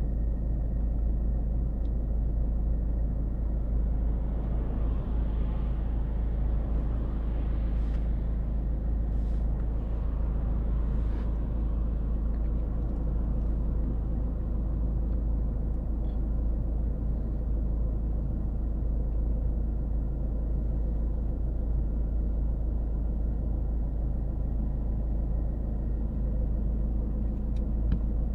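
The Volvo S40's 1.6-litre four-cylinder turbodiesel and its road noise at a steady cruise: a constant low rumble with no revving. A faint hiss swells and fades in the first half, along with a few light clicks.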